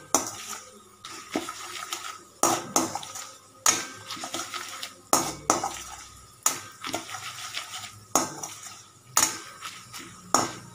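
A slotted spatula stirring peanuts, dals and dried chillies frying in oil in a steel kadai. It knocks against the pan about nine times, a little over a second apart, with scraping between the knocks.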